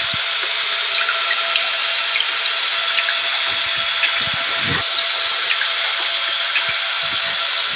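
Vacuum cleaner running steadily at one constant pitch, mixed with falling rain that adds scattered drop clicks over a continuous hiss.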